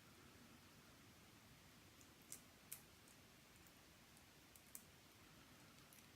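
A few faint, sharp clicks of small metal parts as a lock shim is worked against the plug of a lock, over near-silent room tone.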